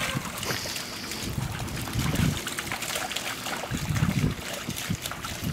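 Dogs wading and splashing through a shallow muddy puddle, water sloshing and dripping around their legs, with gusts of wind on the microphone.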